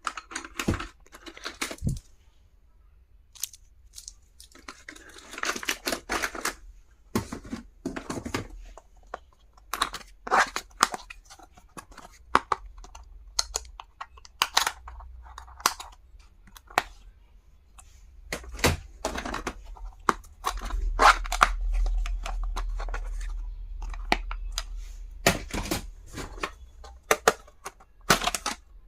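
Stationery being unpacked by hand: packaging rustling and tearing, with many sharp clicks and taps of small plastic items being handled. A low rumble joins in for a few seconds past the middle.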